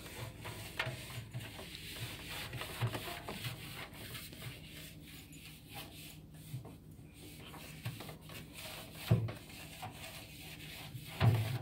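A cloth rubbing and wiping inside a front-loading washing machine's perforated metal drum, with irregular scuffs, and two soft thumps about 9 s in and near the end.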